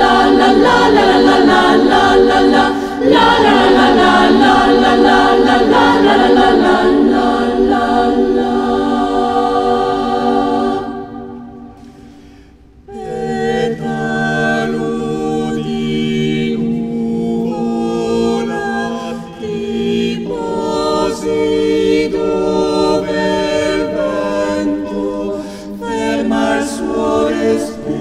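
Mixed choir singing a cappella: a dense 'la la la' passage fades away about eleven seconds in, and after a brief lull a new section begins with slower, held chords.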